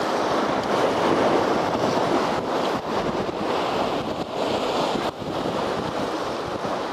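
Sea waves breaking and washing over shore rocks, a steady rushing, with strong wind buffeting the microphone.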